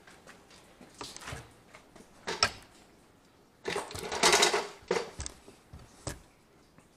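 Handling noise from a handheld camera being carried through a workshop: scattered clicks, knocks and scuffs. About four seconds in there is a louder rustle lasting about a second, as the camera brushes against green plastic sheeting.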